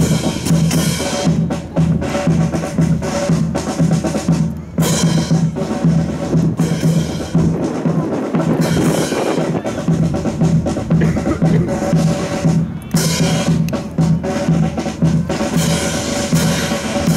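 Military marching band playing a march: bass drum and snare drum keep a steady beat under held brass notes.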